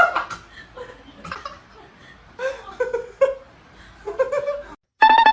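A person laughing softly in short bursts. Near the end, after a sudden break, a loud high sound rising in pitch.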